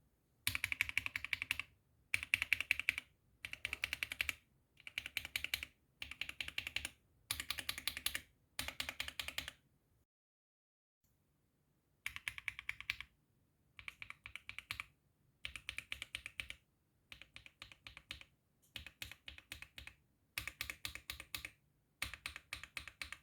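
Keystrokes on Akko CS mechanical keyboard switches, typed in quick bursts of about a second each with short pauses between. There is a longer silent gap of about two seconds near the middle.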